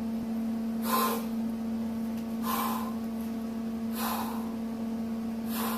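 A man taking deep calming breaths, four in a row about a second and a half apart, over a steady low hum.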